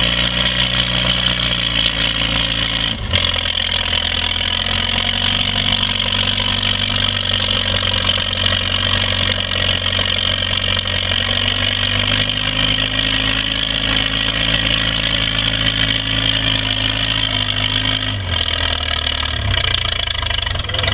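Farmall 400 tractor engine running steadily under load as it pulls a weight-transfer sled. Its pitch shifts about three seconds in and again near the end.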